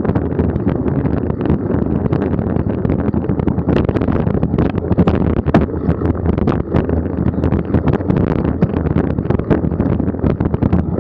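Wind buffeting the microphone of a camera riding on a mountain bike, over the steady rumble of tyres on a dirt forest trail, with frequent sharp knocks and rattles as the bike bounces over rough ground.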